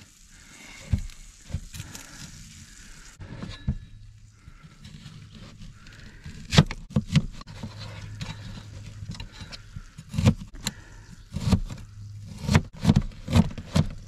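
Chef's knife cutting an onion on a thin plastic cutting mat over a plastic tote lid: irregular sharp knocks of the blade hitting the board. A few knocks in the first half, then quicker chopping from about halfway through.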